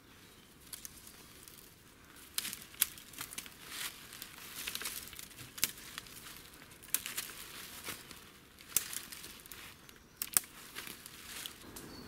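Thin silver birch twigs being snapped and gathered, with irregular sharp snaps amid rustling of dry brush.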